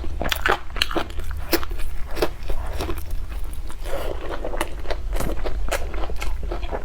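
Close-miked crunchy biting and chewing of food: many sharp, irregular crunches, over a steady low hum.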